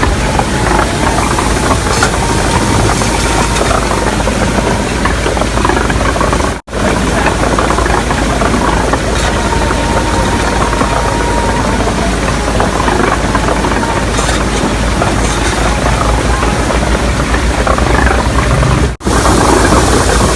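Engine-driven carrot washing machine running steadily, its engine loud and even; the sound breaks off sharply twice where the footage is cut.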